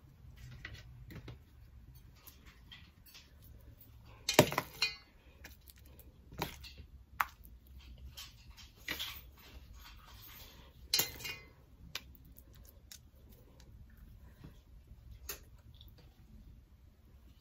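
Metal spoon clinking and scraping against a stainless steel mixing bowl and a baking sheet while scooping mashed potato filling into potato skins. Two sharper knocks with a short ring stand out, about four and eleven seconds in.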